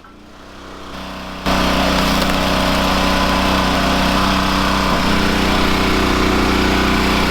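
Log splitter's engine running steadily, getting much louder suddenly about a second and a half in.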